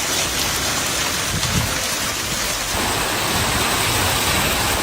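Heavy rain pouring steadily as a continuous hiss.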